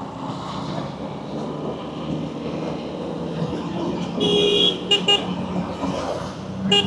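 Vehicle horns honking in heavy road traffic over a steady engine hum: one held honk about four seconds in, two quick toots right after it, and another short toot near the end.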